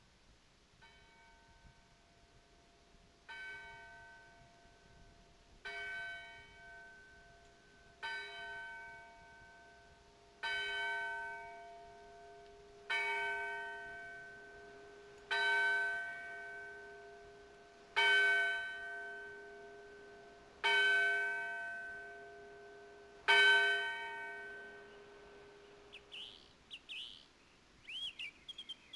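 A large bell tolling slow single strokes about two and a half seconds apart. The first strokes are faint and they grow louder, each one ringing on and fading, until the last dies away. Birds start chirping near the end.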